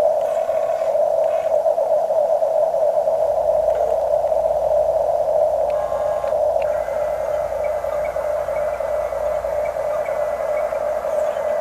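Small electric motors and gearing of Huina radio-controlled construction models whining steadily as they work, with a faint low rumble joining in for most of the time and a short scrape about six seconds in.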